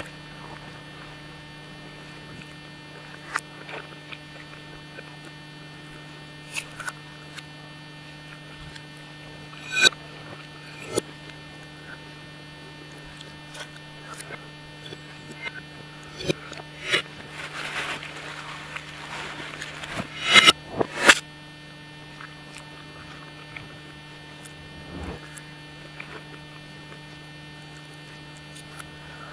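Steady electrical hum under scattered sharp clicks and clinks of a metal fork and knife against a plate. In the middle comes a few-second stretch of noisy spaghetti-eating sounds, followed by two louder clinks.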